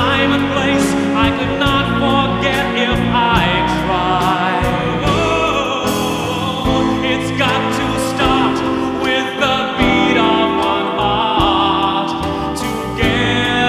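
A man singing long, held notes with vibrato over instrumental accompaniment.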